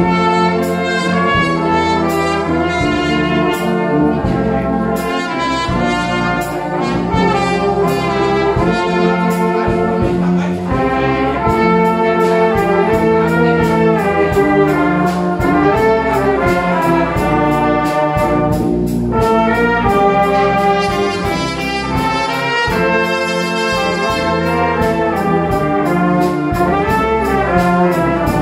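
Amateur brass band playing, a solo trumpet standing out over the band's trumpets, horns and tuba, with a steady drum beat underneath.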